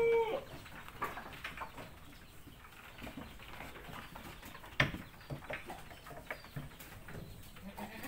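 An Etawa crossbreed goat kid's bleat ends just as the sound begins. Then come scattered knocks and scuffs from the kids moving about in a wooden slatted pen, with one sharp knock about five seconds in and a few faint high chirps.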